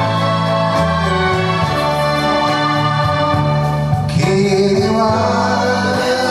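Karaoke backing track of a Japanese pop ballad playing, with a steady walking bass line. About four seconds in the band lifts into the next verse, and a singer's voice comes in near the end.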